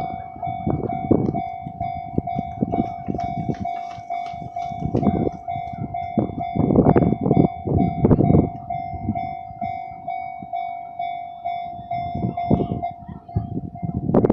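A Japanese level crossing's warning bell rings in a steady, rapidly repeating single tone while a Kintetsu Minami-Osaka Line train passes over the crossing. Its wheels make loud, irregular bursts of clattering and knocking over the rails beneath the bell.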